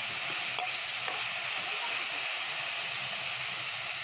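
Julienned potato strips frying in hot oil in an iron wok over a wood fire, a steady sizzle, with one light click about half a second in.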